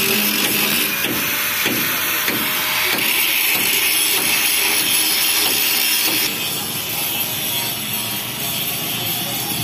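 Handheld angle grinder grinding the sheet steel of a harvester body: a steady, high, hissing grind with a faint motor hum underneath. It drops a little in level about six seconds in.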